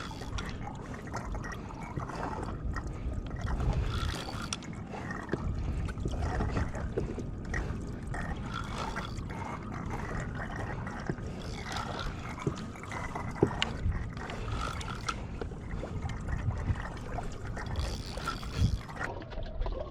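Water sloshing and trickling around a kayak, with scattered small knocks and clicks.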